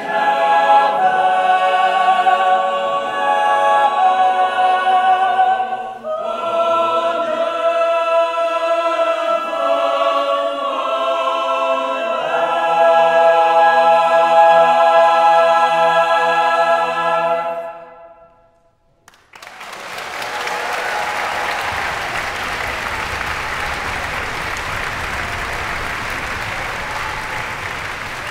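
Mixed chamber choir singing a cappella in held chords, ending on a long final chord that dies away about two-thirds of the way through. After a moment's silence the audience breaks into steady applause.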